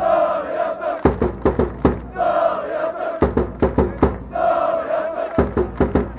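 Football supporters' end chanting in unison, alternating about three times between a short sung line and a quick run of loud drum beats.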